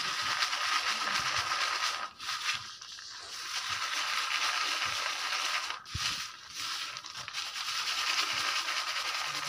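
Roasted peanuts and salt being shaken in a plastic colander: a continuous dry rattling hiss of grains, with brief breaks about two and six seconds in, as the roasting salt is sifted off the peanuts.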